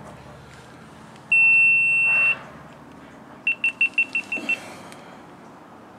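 Electronic timer or alarm beeping: one long high beep of about a second, then a quick run of about seven short beeps at the same pitch. It is the signal that break time has come.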